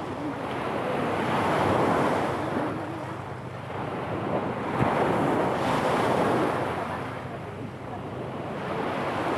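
Small waves breaking and washing up a pebble shore, the surf swelling and ebbing about every four seconds, with wind buffeting the microphone. One short click about halfway through.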